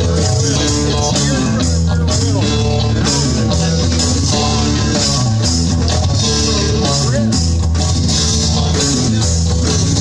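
Rock music with electric guitar, bass and drum kit playing steadily, in an instrumental stretch between sung lines.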